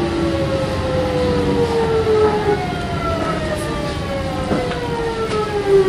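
Kintetsu 1420 series electric train's VVVF inverter traction motors whining in several tones that fall slowly together as the train slows, over the steady rumble of wheels on rail, with a few short clicks near the end.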